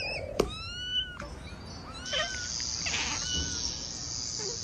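A cat meowing two or three times, with a sharp click about half a second in. From about two seconds in, a steady high hissing noise runs under the calls.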